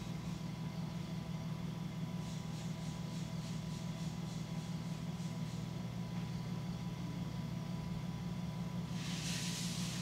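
Electric potter's wheel motor humming steadily while a large clay jar is thrown on it, with a brief hiss near the end.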